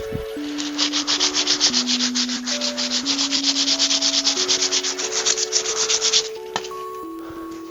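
Sandpaper rubbed rapidly back and forth along the sharp cut edge of a wooden board, several even strokes a second, starting about half a second in and stopping about six seconds in.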